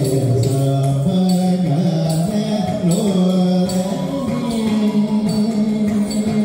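Live South Indian classical dance music: a male voice holds long notes that glide between pitches, over instrumental accompaniment with a light percussion beat.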